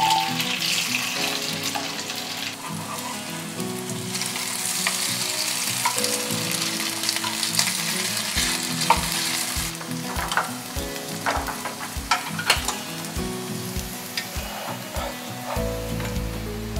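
Strips of sausage sizzling in a hot oiled frying pan while being stirred, with chopsticks and a wooden spatula clicking against the pan through the second half.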